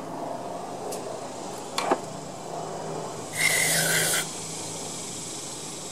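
Aerosol cleaner sprayed through a straw nozzle into a small Tecumseh lawn mower carburetor: one hiss lasting about a second, with a thin whistle in it, starting about three and a half seconds in. A single sharp click comes shortly before, among light rubbing of the metal carburetor parts being handled.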